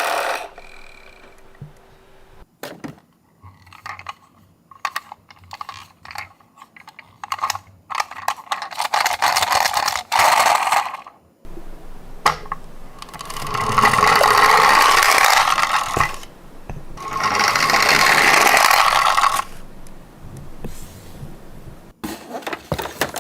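Miniature toy cars clicking and rattling against one another and the box as they are handled, then two longer rolling runs of a few seconds each, about 13 and 17 seconds in.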